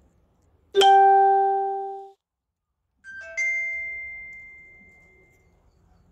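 Two electronic chime tones like a ding-dong: a lower ringing note about a second in that stops abruptly, then a higher note around three seconds in that fades out slowly.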